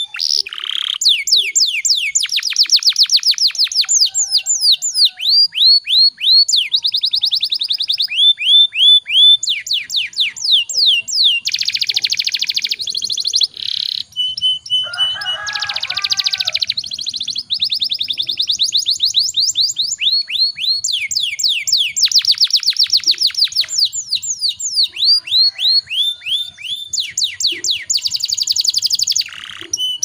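Domestic canary singing a long, unbroken song of rolling trills. It goes through fast runs of repeated falling notes at changing speeds, with a couple of harsher, buzzy stretches around the middle.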